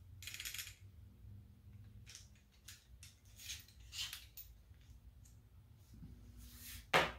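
Light metal clicks and sliding scrapes from a 1/4-inch crown stapler's staple magazine being opened and handled for loading, with one sharper, louder click near the end.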